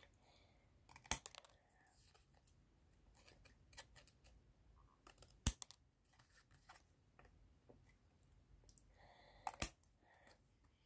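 Quiet handling noise: scattered light clicks and faint rustles, with three sharper clicks about four seconds apart, as an item is unpacked.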